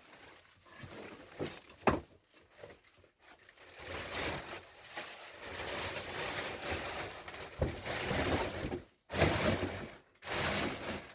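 Packaging being handled and pulled off a golf bag: uneven plastic rustling and crinkling, a sharp snap about two seconds in, and two louder rustles near the end.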